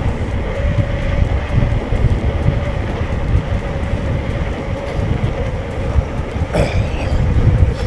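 Electric mountain bike ridden over a rough trail: steady rumble and wind buffeting on the microphone, with the constant whine of its Bosch drive motor. A brief high squeak about six and a half seconds in.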